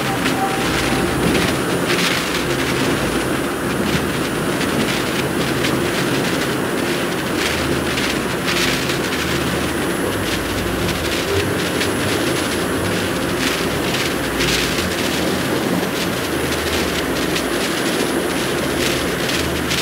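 Sound-effect roar of an object flying at hypersonic speed: a steady rushing noise over a low rumble, with frequent crackles.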